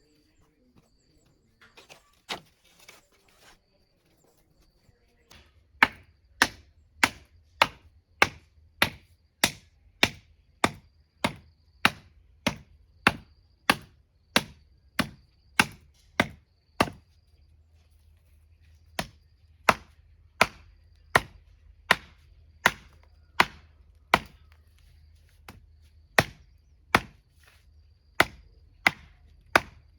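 Steady chopping with a blade, sharp blows about three every two seconds, breaking off briefly around the middle and then resuming at the same pace.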